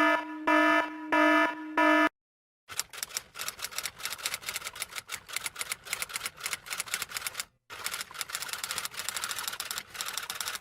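A pulsing electronic beep sounds four times. After a brief pause a typewriter types: a long, rapid run of key clicks with a short break part-way through.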